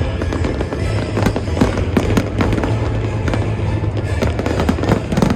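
Fireworks display going off in rapid succession, a dense string of sharp bangs and crackles, with music playing underneath.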